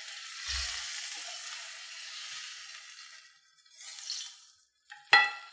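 Salmon fillets sizzling in a hot frying pan, the hiss dying away about three seconds in as the pan comes off the heat, with a brief sizzle again around four seconds. A sharp metallic clink near the end is the loudest sound.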